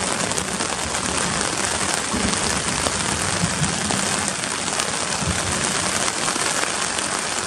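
Steady rain falling on a tent's fabric: a dense, even patter of many fine drops during a thunderstorm.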